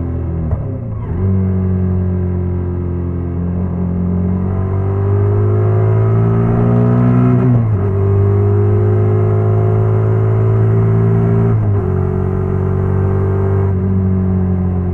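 Honda NC750X parallel-twin motorcycle engine running under way, its revs climbing and then dropping sharply at gear changes, most clearly about halfway through and again near the end.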